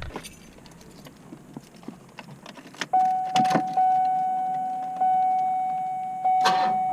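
Keys jingling and clicking faintly, then about three seconds in the 1991 Cadillac DeVille's dashboard warning chime starts: one ringing tone, struck again about once a second and fading between strikes.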